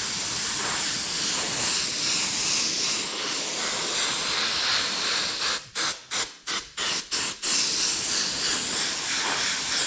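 Airbrush spraying size, a glue and thinners mix, as a steady hiss of air and atomised liquid. Just past the middle the trigger is let off and pressed again several times in quick succession, giving short gaps in the hiss, before a steady spray resumes.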